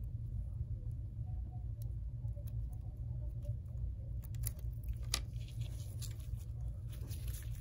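Small clicks and scrapes of a metal pry tool working under a bracket on an iPhone XS screen assembly, with one sharp click about five seconds in and a short burst of scraping and handling near the end, over a steady low hum.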